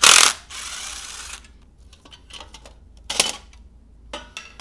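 Cordless impact tool hammering on a clutch pressure-plate bolt in a short loud burst, then running on for about a second as the bolt comes loose. A sharp metallic knock about three seconds in and a smaller one near the end come as the loosened pressure plate is handled.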